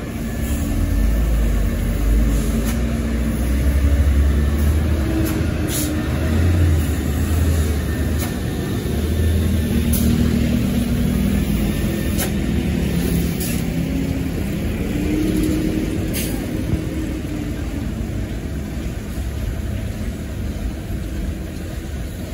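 Heavy diesel truck engines running close by, a deep steady rumble whose engine note rises and falls as the trucks idle and move off.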